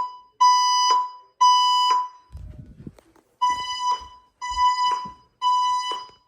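Fire alarm voice-evacuation speaker sounding the temporal-three evacuation tone between spoken announcements. A steady tone around 1 kHz sounds in pulses of about half a second, three in a row, then a pause of about a second and a half, then three more.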